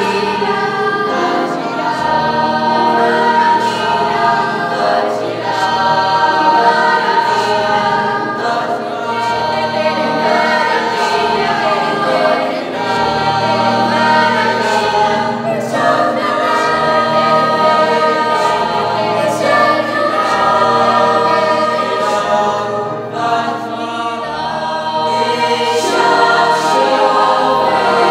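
Youth choir of teenage boys and girls singing in mixed voices, continuously.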